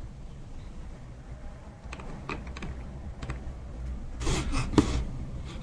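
A few scattered light clicks from a desk computer's keyboard and mouse, then a short, louder burst of noise about four seconds in, over a low steady hum.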